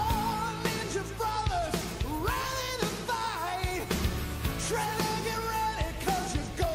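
Pop-rock song with a singing voice over a steady drum beat.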